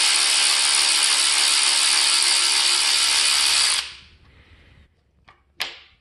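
Cordless electric ratchet running steadily as it backs out a 10 mm bolt on the engine's timing chain hardware, stopping suddenly about four seconds in. A faint click and a sharp knock follow near the end.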